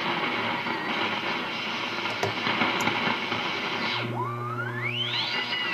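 Receiver hiss and crackling static. About four seconds in, a heterodyne whistle over a low hum comes in and rises steeply in pitch as the Johnson VFO is tuned through the receiver's frequency.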